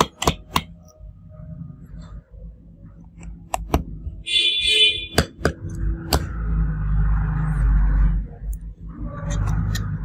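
Sharp clicks and taps of a small precision screwdriver on the screws and frame inside an opened Redmi Note 7 Pro. A brief high pitched beeping tone comes about four seconds in. A low rustling rumble of handling fills much of the second half.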